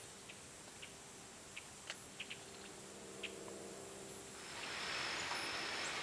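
Marsh bird ambience: scattered short, sharp chip notes. About four seconds in, a louder steady hiss comes in, carrying a thin, high buzzing tone that breaks off now and then.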